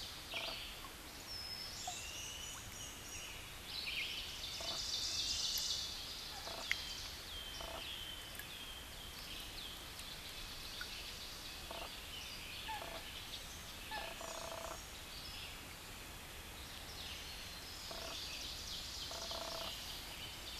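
Wild birds singing: many overlapping chirps, whistles and fast trills, the trills loudest about four to six seconds in and again near the end.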